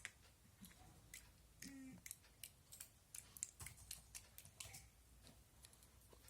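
Faint scattered clicks and small taps of plastic bottles and caps being handled, with a brief low squeak about two seconds in.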